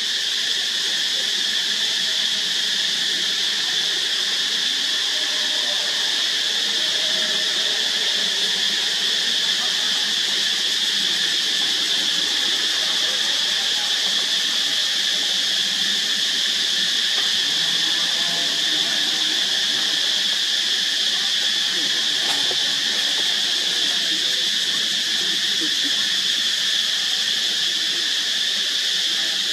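Insect chorus in a steady, high-pitched drone that holds unbroken and even throughout.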